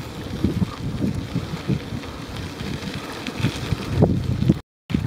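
Wind buffeting the microphone while riding a bicycle along a gravel trail, in irregular low gusts and bumps. The sound drops out completely for a moment near the end.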